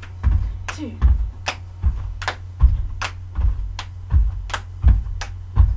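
Bare feet thudding on a carpeted porch floor as two people hop from foot to foot with high knees, about two or three landings a second, over a steady low hum.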